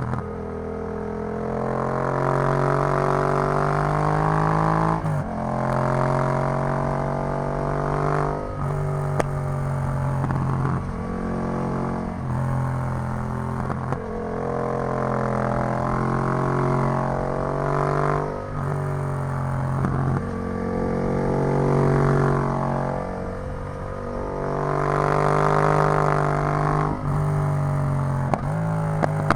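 Yamaha MT-07's parallel-twin engine through an Arrow full exhaust system, running under way. Its note rises and dips with short breaks every few seconds as the throttle and gears change, and a quick run of sharp ticks comes near the end.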